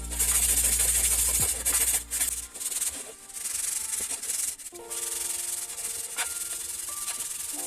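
Abrasive sanding of rusted bicycle metal: a steady, harsh scratching hiss, with a low motor hum under it that stops about two and a half seconds in.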